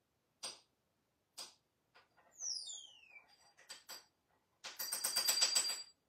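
African grey parrot making sharp clicks and a quick run of falling whistles, then a rapid rattling call lasting about a second near the end.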